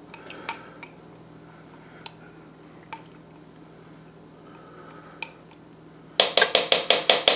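Silicone spatula scraping thick barbecue sauce out of a glass measuring cup, with a few soft clicks. Near the end, a quick run of about nine sharp taps as the spatula and glass cup are knocked together to shake the last of the sauce loose.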